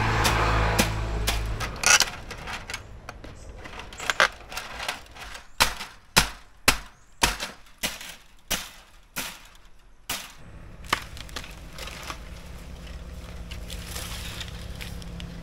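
Steel hammer striking wood and nails, a dozen or so sharp blows at about two a second, mostly in the middle. The hammer is used in place of a nail puller to knock apart the old pen.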